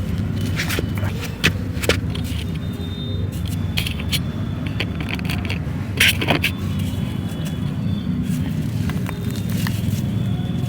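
A block of crumbling texture being crushed and crumbled by hand: scattered sharp crunches and crackles, the loudest about six seconds in, over a steady low rumble.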